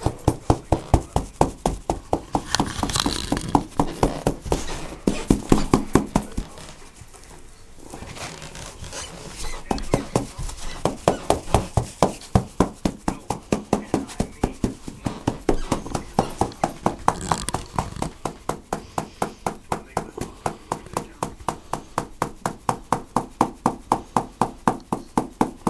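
Soft rhythmic thumps, about three to four a second, from a hand patting an orange tabby cat's body. They stop briefly about seven seconds in, then carry on at the same pace.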